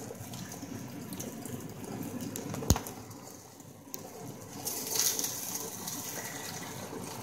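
Beaten egg sizzling in hot oil in a non-stick frying pan, a steady hiss, with one sharp click a little under three seconds in. Around five seconds in the hiss grows louder as a spatula works the egg in the pan.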